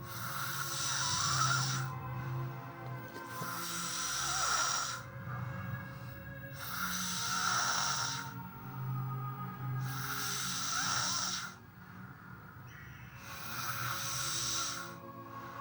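Snoring in a slow, even rhythm, about one breath every three seconds, five in all, each a noisy hiss lasting a second or two.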